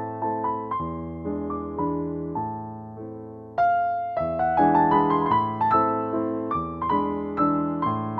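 Background piano music: a gentle melody of struck notes, each fading away, pausing briefly about three and a half seconds in before the phrase starts again louder.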